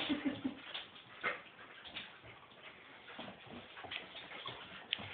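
Two small dogs play-wrestling on a hard floor: their claws click and scrabble irregularly as they tussle.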